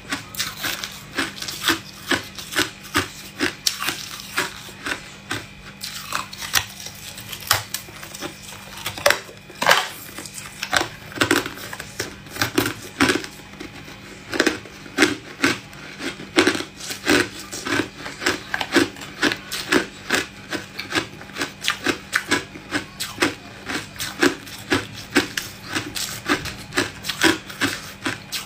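A person biting and chewing hard ice: a steady run of crisp crunches, a few per second.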